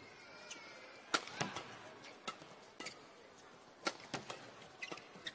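Badminton rackets striking a shuttlecock in a fast doubles rally, a string of sharp hits about every half second, with court shoes squeaking on the floor near the start.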